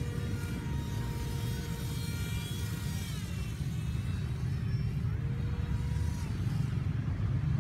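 RC paramotor's motor and propeller whining in flight as it comes in to land, the pitch shifting a little with the throttle a few times, over a steady low rumble of wind on the microphone.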